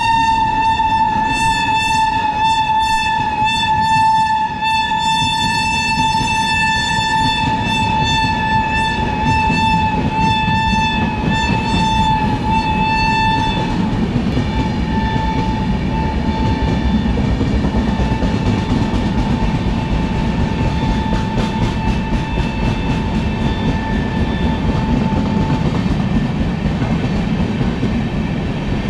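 WAP-7 electric locomotive's horn giving one long, shrill, unbroken honk on a single note over the steady rumble of the running train. The horn drops in level about 13 seconds in, carries on more faintly, and stops a few seconds before the end, leaving only the train's rumble.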